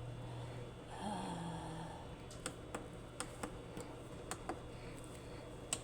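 A string of sharp, light clicks at an uneven pace of roughly two or three a second, beginning about two seconds in, over a low steady hum.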